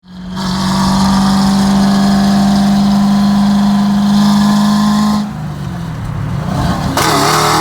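Car engine held at a steady high rev, one even note, for about five seconds, then dropping back; near the end the pitch wavers up and down.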